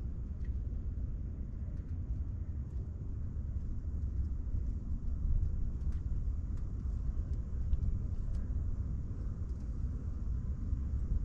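Wind buffeting the microphone on an open boat: a steady, fluttering low rumble.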